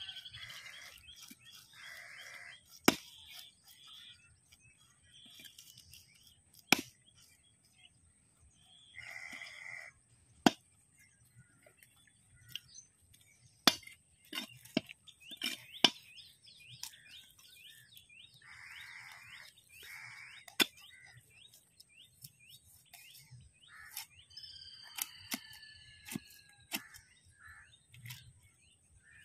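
Large knife chopping through fish onto a wooden log block: sharp single knocks at irregular intervals, a few seconds apart. Birds chirp and whistle between the chops, with a run of quick ticking calls in the middle.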